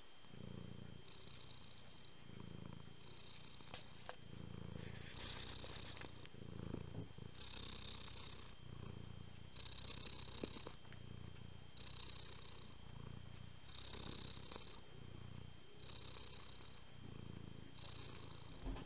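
Domestic cat purring, the purr swelling and easing in an even rhythm of roughly one breath every two seconds, with a faint steady high whine behind it.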